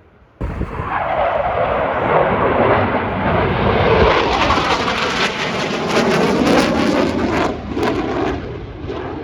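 Jet aircraft flying past at an airshow display, loud engine noise with a sweeping, phasing tone as it passes. The sound starts abruptly about half a second in and eases slightly near the end.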